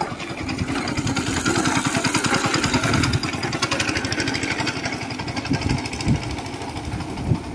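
Go-kart's small single-cylinder petrol engine running with a fast, even pulse as the two-seater kart drives past, growing louder over the first couple of seconds and then slowly fading as it moves away.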